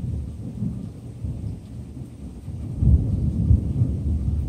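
Thunder from a storm almost directly overhead, a deep rolling rumble that swells into a louder peal about three seconds in.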